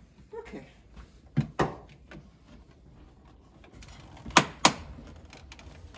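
Plastic clicks and knocks from an LG refrigerator's water filter housing assembly being worked apart by hand: a pair of sharp knocks about a second and a half in, and a louder pair a little after four seconds.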